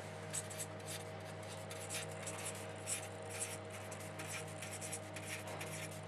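Felt-tip marker writing on paper: a run of short scratchy strokes as letters are written, over a faint steady hum.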